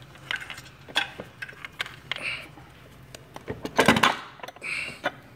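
Scattered metal clicks and knocks, with a cluster of louder clanks about four seconds in and brief scrapes, as the electric drive motor of a Crown walkie pallet jack is worked loose and pulled off its drive unit.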